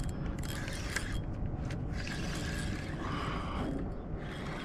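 Penn Fierce III spinning reel being cranked to bring in a hooked fish, its gears running steadily with small clicks.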